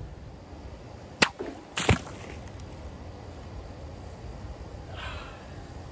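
Two sharp cracks about half a second apart, the second louder and fuller: a steel longsword slicing through a soda-bottle cutting target.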